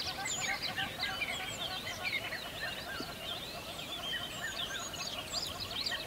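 A dense chorus of many birds chirping at once: short, high, overlapping notes and quick sweeps, steady throughout, with a lower repeated twittering beneath.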